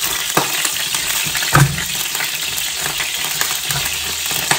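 Hot oil sizzling steadily in a frying pan as a whole browned chicken is lifted out with spatulas. The utensils knock against the pan a few times, with the loudest knock, a dull thump, about one and a half seconds in.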